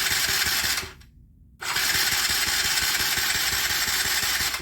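Mini ATV's electric starter cranking the engine in two long attempts, the first ending about a second in and the second starting half a second later and running about three seconds; the engine turns over rapidly but does not fire. The choke is set, and the hard start comes from a poorly adjusted tapered needle in the Mikuni carburetor.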